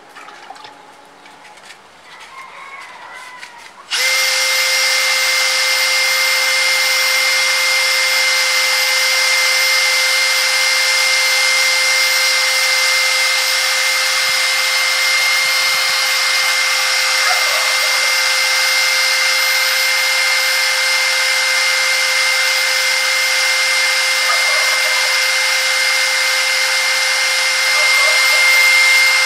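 Cordless Makita drill with an abrasive disc in its chuck starts about four seconds in and then runs steadily at full speed: a constant motor whine over a grinding hiss, as a scooter variator part is held against the disc to sand out scratches on its face. It gets a little louder near the end.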